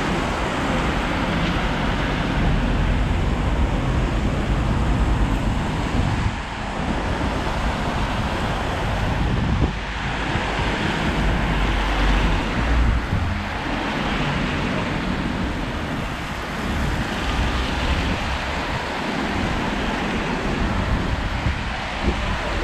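Road traffic passing one vehicle after another, tyres hissing on the wet road surface and swelling and fading every few seconds. Low wind rumble on the microphone comes and goes underneath.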